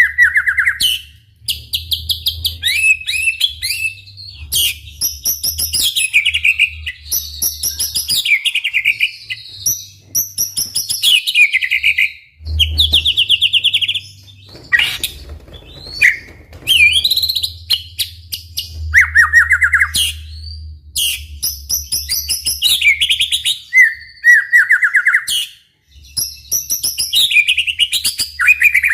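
White-rumped shama singing energetically: a long run of varied phrases of clear whistles, fast trills and rattling notes, one after another with only short pauses.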